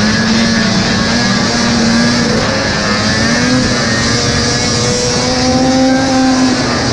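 Vintage racing snowmobile's two-stroke engine running hard at speed, heard from on board the sled with wind and track noise. Its pitch wavers and climbs a little about five seconds in.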